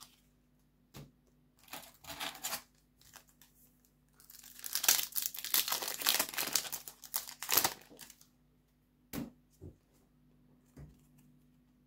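Foil Yu-Gi-Oh! booster pack wrapper crinkling and tearing as it is ripped open, a dense crackle from about four to eight seconds in. There are shorter rustles before it and a few light taps near the end.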